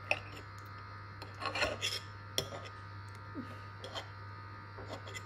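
Metal knife and fork scraping and clicking on a ceramic plate while cutting a fried egg, in scattered short strokes, over a steady low hum.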